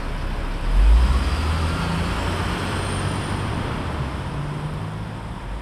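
City road traffic: a steady rush of passing vehicles over a low engine rumble, loudest about a second in and easing slightly toward the end.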